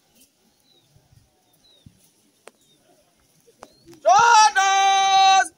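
A drill commander's long drawn-out shouted word of command, starting about four seconds in: the voice rises, then holds one high pitch for over a second, and a second short rising shout begins at the very end.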